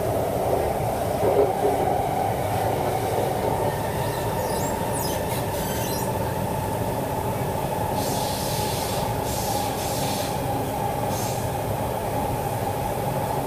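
Siemens C651 metro train running at speed, heard from inside the carriage: a steady rumble with a constant whine. Several short, high, hissing squeals from the wheels come in the middle.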